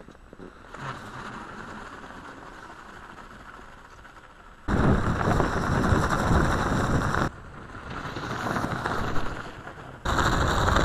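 Homemade electric snowmobile with a rubber track running over snow: a rough rumble from the track, with a steady high whine from the electric drive. It is loud in two stretches, about five seconds in and near the end, heard close up from a camera mounted on the machine, and quieter in between.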